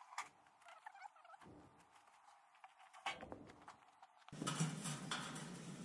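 Light clicks and rattles as the sheet-metal top panel and fan grille of an air-conditioner condenser are lifted off, then a louder rustling scrape from about four seconds in.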